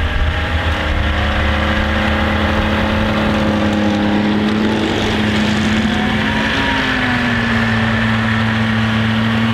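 Grooming snowmobiles running steadily as they tow their drags across the snow, the engine note shifting slightly as the nearer sled comes close about six and a half seconds in.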